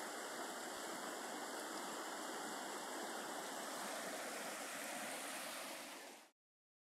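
Swollen, muddy river running fast over rapids: a steady rush of water that cuts off suddenly near the end.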